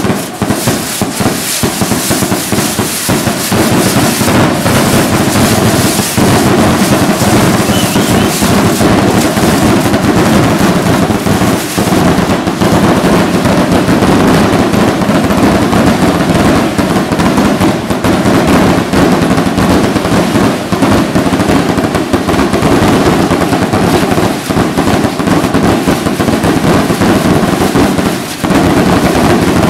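Fireworks going off at close range: a dense, unbroken barrage of bangs and crackling, with a short lull near the end.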